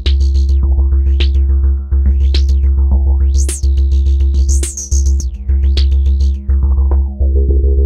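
Eurorack modular synthesizer playing a techno pattern, a steady deep bass and held tones under regular drum-machine hits, fed through the F1 stereo filter in 4-pole mode. The filter cutoff is swept up and down about five times, roughly once a second, opening brightest near the middle.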